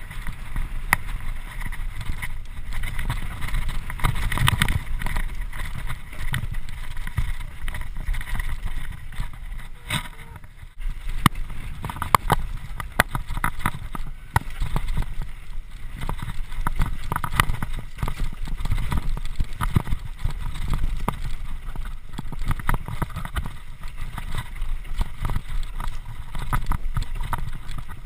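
Mountain bike descending a rough dirt singletrack: wind rushing over the microphone with constant rattling and knocking from the bike over the bumps. The noise dips briefly about ten seconds in.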